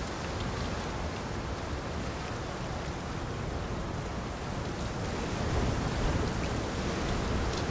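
Steady heavy rain pouring down, a dense even hiss with scattered drop ticks and a low rumble that swells about two-thirds of the way through.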